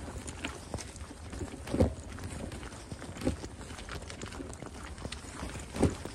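Footsteps crunching on a gravel-and-dirt path while walking, with three heavier thumps among lighter steps and a steady low rumble underneath.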